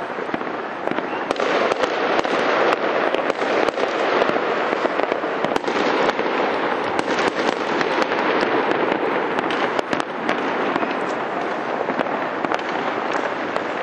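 Fireworks display in full barrage: many sharp bangs over a continuous crackle, with no break.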